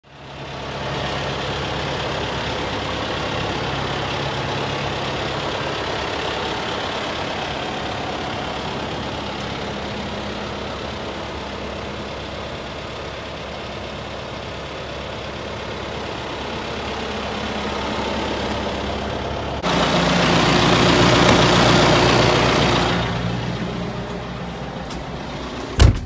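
John Deere 5125R tractor's diesel engine idling steadily. About twenty seconds in it suddenly gets louder for a few seconds, then eases off, and a sharp knock comes just before the end.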